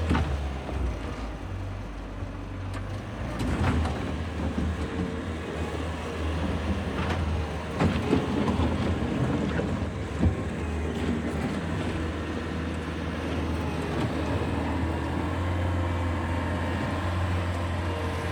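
Bobcat T595 tracked skid steer's diesel engine running while the machine is operated, its load shifting, with a few sharp knocks and clanks.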